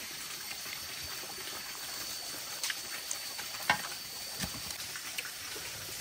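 Steady trickling background noise with a thin, steady high tone and a few light clicks and knocks from the meal, the sharpest about two-thirds of the way in.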